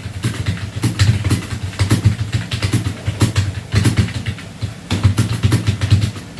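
Fast touch-typing on a computer keyboard at around 84 words per minute: rapid key clicks in quick uneven runs, with a low rumble under them.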